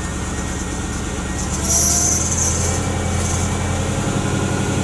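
Mercedes AMG 55 5.5-litre V8 held at raised revs in drive against the brakes, the engine note stepping up about 1.7 seconds in with a hiss over it. Under this load the engine is seriously over-fueling, running rich.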